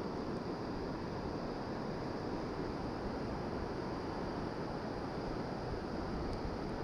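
Steady outdoor wind and water noise, wind rushing on the microphone over the wash of shallow sea water, with no distinct events.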